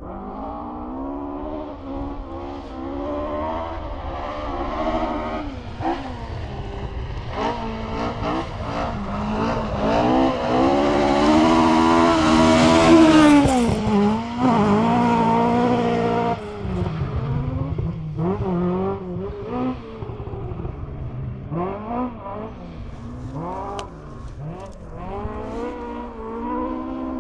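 Rally car engine heard from inside the car at full stage pace, revving hard and then dropping over and over as the driver changes gear, lifts and accelerates between corners. The revs climb to a peak about halfway through and fall away sharply. Sharp knocks and clatters from the car running over the gravel stage are heard along with the engine.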